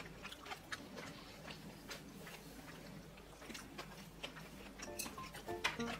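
Faint eating sounds: scattered light clicks of wooden chopsticks against ceramic bowls and a plate. Short musical notes come in about five seconds in.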